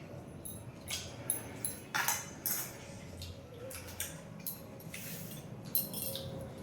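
Eating sounds at a meal: a scattered string of short clicks and smacks from chewing and from food being handled on plates.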